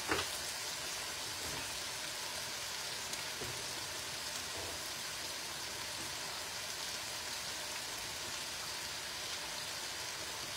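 Chicken, sun-dried tomatoes and mushrooms steadily sizzling as they fry in sausage grease and tomato oil in a pot.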